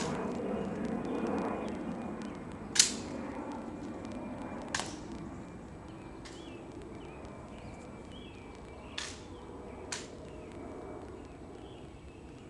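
Sharp snaps and clicks of an M14 rifle being handled in a ceremonial rifle inspection: five separate strikes, the loudest about three seconds in, the others spaced a second or more apart.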